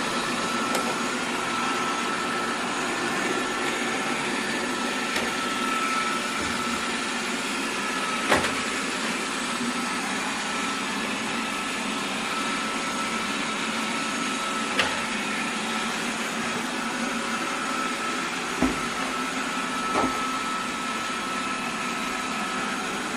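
Xiaomi Mi robot vacuum cleaner running steadily, its fan and motor making an even whirring noise with a high whine. A few short, sharp knocks sound over it.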